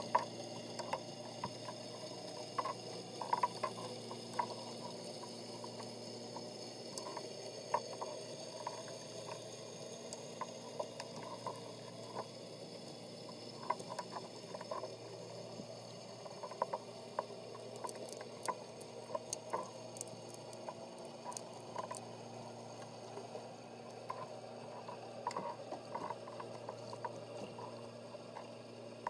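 Underwater ambience picked up through a camera's waterproof housing on the sea floor: a steady low hum with many small scattered clicks and pops, and a cluster of sharper ticks partway through.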